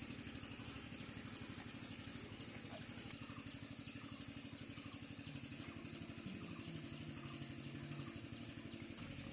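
A small engine running steadily at idle, with a fast, even putter.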